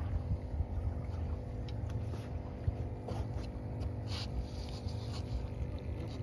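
Low, steady rumble of wind and water around a small aluminum boat, with a faint steady hum underneath and a few light knocks, one a little louder about four seconds in.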